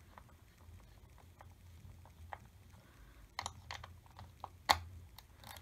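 Quarter-inch-drive ratchet clicking as an 8 mm coil hold-down bolt is run down: faint, irregular ticks at first, then louder, quicker clicks from about three and a half seconds in, with one sharp click near the end.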